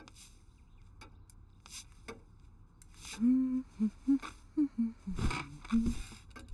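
A few faint ticks, then from about three seconds in a voice humming a short tune in low, clipped notes.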